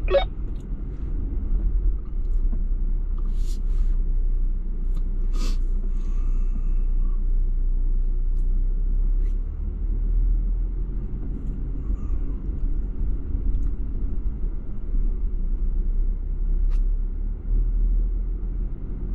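Jeep engine running low and steady as it crawls over a rocky trail, with two sharp knocks about two seconds apart a few seconds in.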